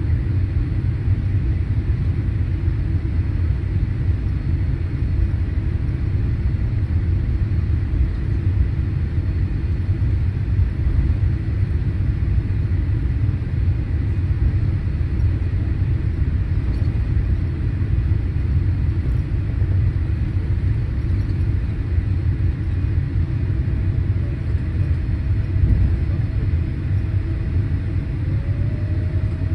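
Steady low rumble of a Boeing 787-8 rolling along the taxiway after landing. Near the end a whine rises and settles on a steady pitch.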